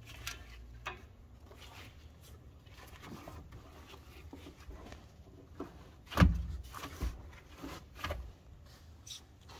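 Gloved hand scrubbing and scraping dirt off a bare car floor pan, irregular rubbing strokes on sheet metal. A loud knock about six seconds in, with smaller knocks after it.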